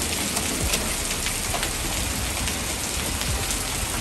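Rain mixed with hail falling steadily: a dense, even hiss with scattered sharp ticks of hailstones striking the ground and roofs.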